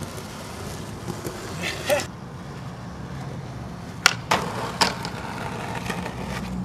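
Skateboard wheels rolling on smooth concrete. About four seconds in come a sharp tail pop and a knock as the board lands on top of a park bench, another hit, and the board scraping as it grinds along the bench.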